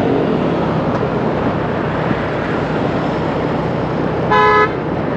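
Steady city street traffic, with one short vehicle horn honk about four seconds in.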